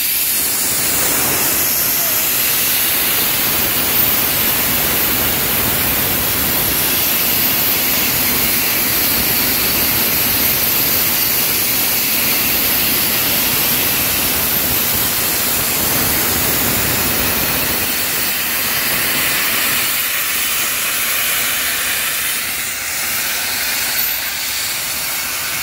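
Steam hissing loudly and steadily from the LMS Jubilee class steam locomotive Leander and its train. A lower rumble under the hiss fades out about two-thirds of the way through.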